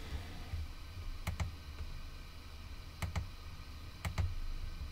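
Computer mouse clicked three times, each click a quick pair of sharp ticks, over a faint steady low hum.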